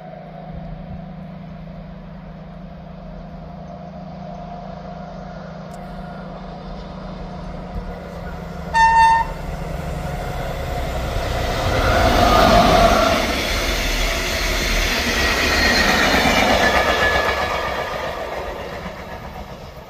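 A DB class 218 diesel-hydraulic locomotive approaches with a steady engine drone and gives one short horn blast about nine seconds in. It then passes close by with its train of work wagons, and the engine and wheel noise rise to a peak and fade away.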